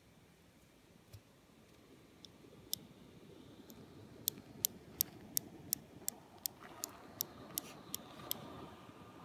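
Sharp clicking from inside a 2016 Razer Blade 14-inch laptop: a few scattered clicks, then a steady run of about three clicks a second for roughly four seconds, over the fan's hiss, which builds and takes on a faint whine near the end. The clicking is intermittent and, by the owner's account, comes only when the laptop is tilted and the fans spin up to a higher speed.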